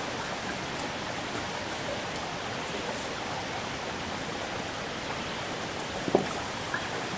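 Steady rush of flowing water, with a couple of faint knocks near the end.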